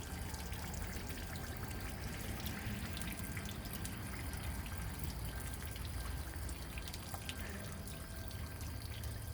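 Water trickling and dripping steadily as it drains out of the boat.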